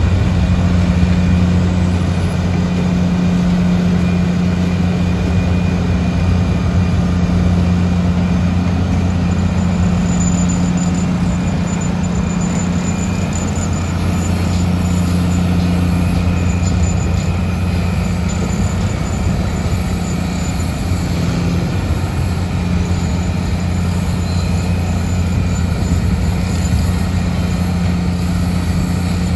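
Heavy diesel engine of construction machinery running steadily with an even, low hum that holds the same pitch throughout.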